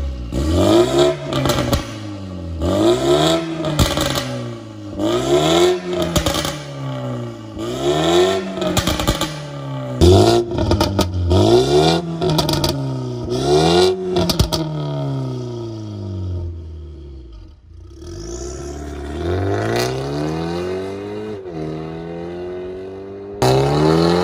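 BMW G20 330i's turbocharged 2.0-litre four-cylinder through an Armytrix turbo-back valved exhaust, revved hard in repeated quick blips with sharp pops as the revs fall. Later it pulls away under acceleration, the pitch rising steadily with one gear change near the end.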